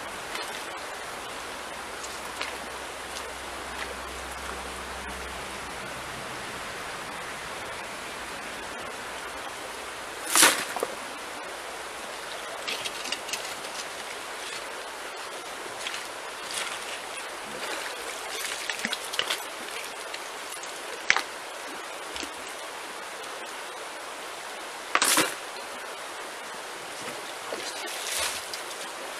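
A creek runs steadily over stones while a shovel digs gravel from the streambed and tips it into a bucket. Scattered stony scrapes, rattles and splashes sit over the water, with a few louder short hits about ten, twenty-one and twenty-five seconds in.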